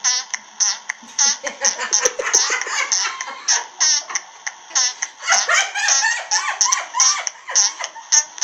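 Hearty, high-pitched laughter in quick repeated bursts, a long fit of belly laughs.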